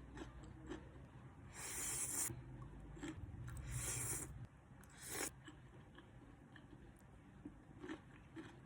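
Close-up eating sounds: three crisp crunching bites in the first half, then quieter chewing clicks.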